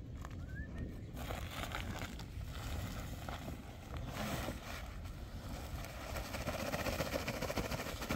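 Cloth sacks of cement powder being handled and shaken out onto a sand pile: rustling sackcloth and a pouring hiss, fullest in the second half, over a low wind rumble on the microphone.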